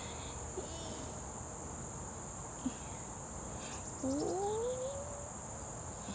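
Steady high-pitched insect chorus. About four seconds in, a brief rising call rises over it.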